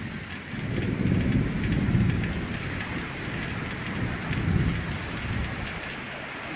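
Thunder rumbling over a steady hiss of rain, swelling from about half a second in and again around four seconds.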